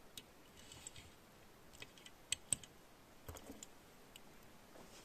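Faint, scattered clicks and light taps of a 1/64-scale Hot Wheels Ford Mustang GT500 diecast toy car being handled and lifted off a metal checker-plate surface, with two sharper clicks about two and a half seconds in and a short cluster a second later.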